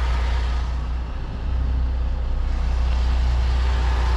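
MAN lorry's diesel engine running at low speed with a steady low drone as the truck creeps through a tight turn, dipping briefly about a second in.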